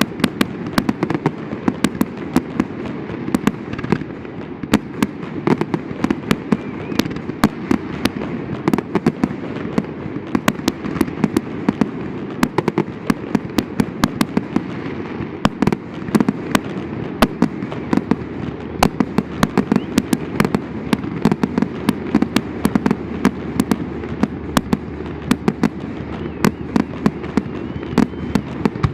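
Fireworks display: a rapid, continuous string of sharp bangs and cracks, several a second, over a steady low din of overlapping bursts.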